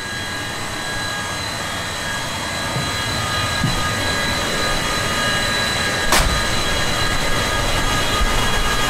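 A standing locomotive's machinery running: a steady whine with several high tones over a broad rush, growing slightly louder, with a single sharp click about six seconds in.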